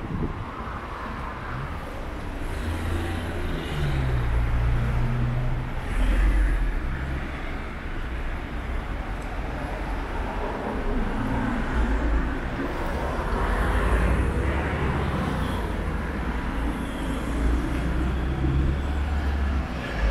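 Street traffic: cars passing, a low rumble of engines and tyres that swells and eases several times.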